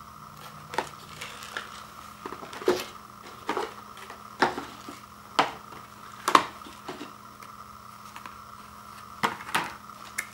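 Instant ramen cups being pulled out of a cardboard carrier tray and set down on a wood floor, then handled: about ten light, irregular knocks and scrapes, the loudest about six seconds in.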